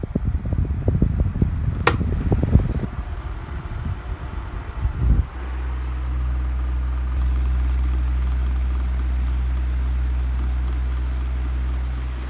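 2005 Challenge 12-inch desk fan: irregular low knocking and rumble with a sharp click about two seconds in, then from about five seconds a steady low motor hum.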